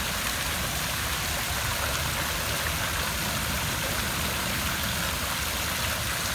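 Water running and splashing steadily in an outdoor fountain's basin while the fountain is refilled and its pump set going, with a low steady hum underneath.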